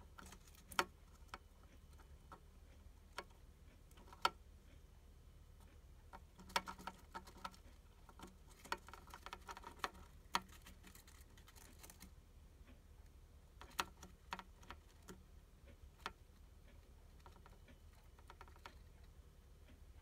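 Hamster chewing a cicada: scattered small sharp crunches, with runs of quick crunching about six to seven seconds in and again around nine to ten seconds in.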